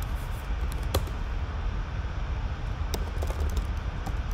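Computer keyboard keystrokes, a few scattered clicks about a second in and again around three seconds in, over a steady low hum.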